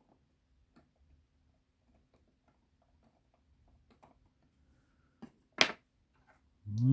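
Faint, scattered small clicks of metal tools working on a pocket watch movement. About five seconds in there are two sharper clicks, the second much louder. A low hummed voice begins right at the end.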